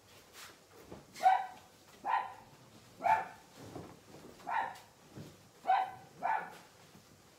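A small dog barking repeatedly, about six short barks spaced roughly a second apart.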